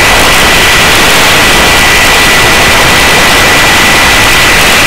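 Helicopter hovering, its turbine engine and rotor making a loud, steady rush of noise with a faint high whine, heard at the open cabin door.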